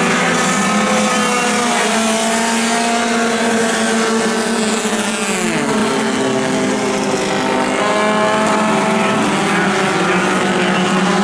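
A pack of four-cylinder compact dirt-track race cars running at racing speed, several engines droning at different pitches at once. About halfway through, one engine's pitch drops sharply as a car goes past close by.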